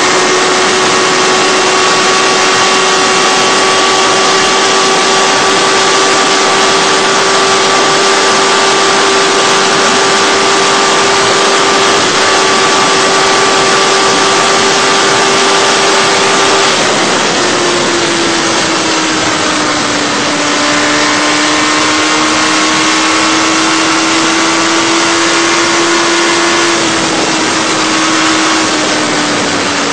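Sport motorcycle engine running at high, steady revs at motorway speed, under heavy wind rush on the bike's on-board microphone. About two-thirds of the way through the revs drop a little, climb slowly, then drop slightly again near the end.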